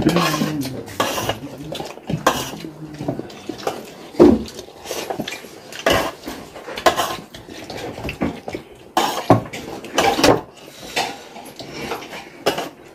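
Steel plates and bowls clinking and scraping at irregular moments as a group eats at a table.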